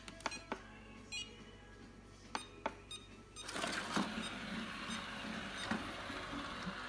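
ILIFE V10 robot vacuum: a few sharp clicks and a short beep, then a steady whirring noise from its suction motor and brushes starting about halfway through and carrying on.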